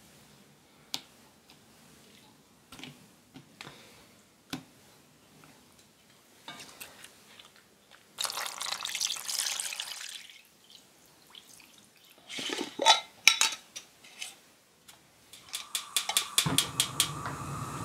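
Water pours into a stockpot over a chicken carcass for about two seconds, about eight seconds in, followed by a few loud metal clanks of the pot. Near the end a gas stove's igniter clicks rapidly as the knob is turned, and the burner catches with a steady hiss.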